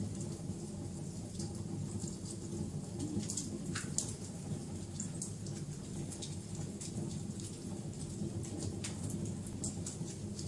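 Wood fire crackling: irregular small pops and snaps over a steady low rumble, with one louder snap about four seconds in.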